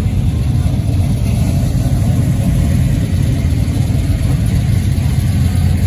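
Classic cars and a rat-rod pickup driving slowly past one after another, their engines giving a steady low rumble.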